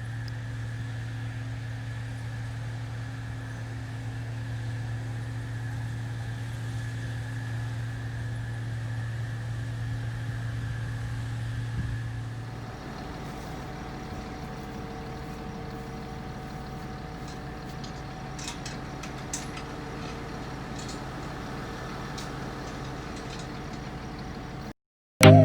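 Combine harvester running steadily with a low drone. About halfway through the hum changes pitch and character, with scattered light ticks over it.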